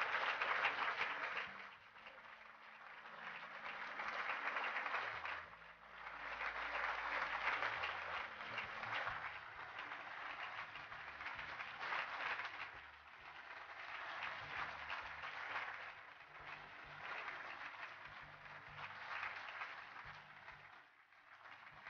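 Audience applauding. The clapping is loudest at the start, then swells and eases in several waves before dying away near the end.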